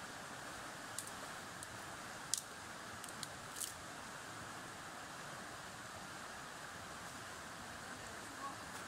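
Steady rush of a flood-swollen river, with a few sharp clicks in the first four seconds, the loudest about two and a half seconds in.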